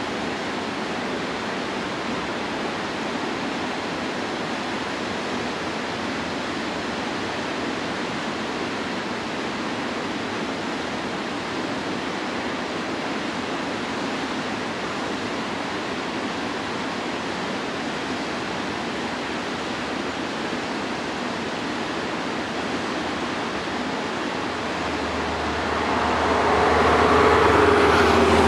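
Steady rush of falling water from a waterfall. Near the end, a large vehicle's engine comes close and grows louder, with a low hum.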